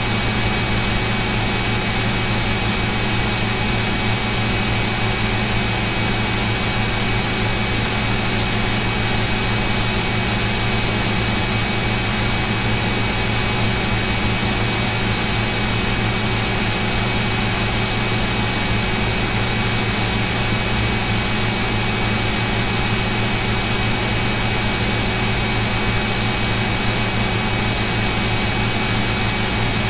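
Steady hum and hiss with several fixed tones, unchanging, like machine or electrical noise picked up on a computer microphone.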